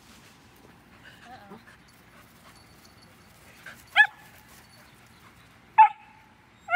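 Poodle puppy giving three short, high-pitched yaps, the first about four seconds in and the other two close together near the end, the middle one trailing off into a brief whine.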